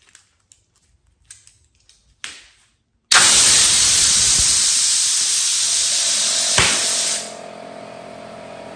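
Compressed air hissing loudly from an air-hose nozzle as it blows up a disposable glove, which bursts with one sharp pop after about three and a half seconds. An air compressor then runs with a steady hum under a fainter hiss, kicked on by the air being drawn off.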